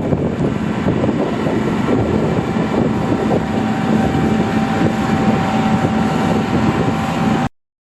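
John Deere combine harvester running steadily as it harvests barley, a loud machinery drone with a low hum and a thin whine that comes in about two and a half seconds in. The sound cuts off abruptly near the end.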